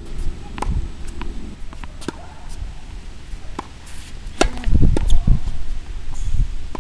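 Tennis ball pops off the racket strings and bounces on a hard court in sharp single cracks, the loudest about four and a half seconds in as a serve is struck, over uneven low rumbling.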